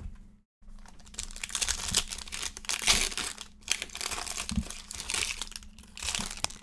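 Foil wrapper of a Panini Chronicles trading-card pack being torn open and crinkled in the hands, as an irregular run of crackling rustles that is loudest about three seconds in.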